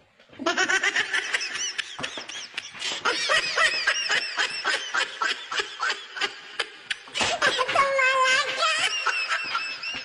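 High-pitched laughter: a long run of quick, short laughs that starts about half a second in.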